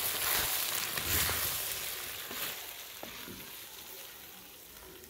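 Metal ladle stirring and scraping green beans and potatoes with spices in a clay pot, the vegetables sizzling in hot oil as they are sautéed. The stirring is loudest in the first couple of seconds, then dies down to a fainter sizzle.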